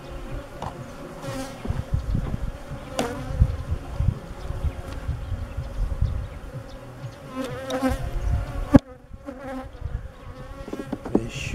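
Honey bees buzzing in a steady hum around an open hive, with low rumbling on the microphone and a sharp click about nine seconds in.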